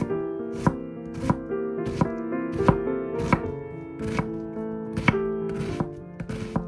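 A knife chopping food on a cutting board in slow, even strokes, about one every two thirds of a second, over background music.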